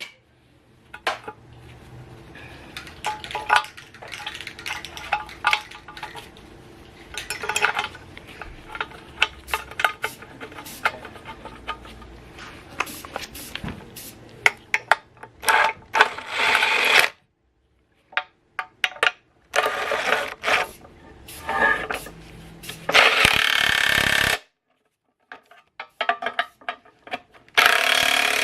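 Metal tools clicking and clinking against the engine mount and bracket, then several one- to two-second bursts of a cordless ratchet running bolts in as the new front engine mount is fitted.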